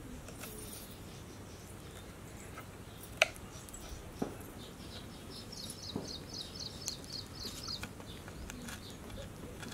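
Kitchen knife slicing green chillies on a wooden chopping board: a few separate sharp taps of the blade striking the board, the loudest about three seconds in. About halfway through, a bird gives a quick run of repeated high chirps for around two seconds.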